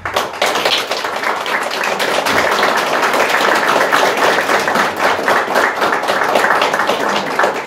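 Audience applauding: many hands clapping together, starting suddenly and fading away near the end.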